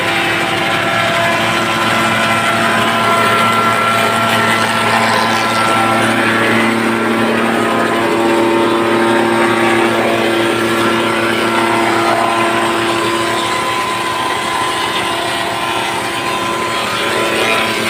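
Taiwan-made AN51 wood planer running steadily, a continuous loud machine hum with several steady tones.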